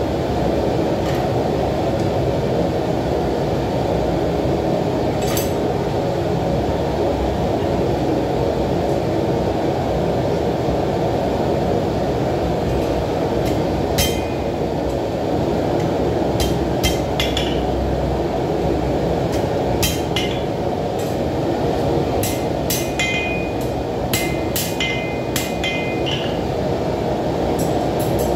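Steady roar of a forge burner running throughout, with scattered hammer blows on hot steel over an anvil, a few ringing briefly, most of them in the second half as a knife blade is forged.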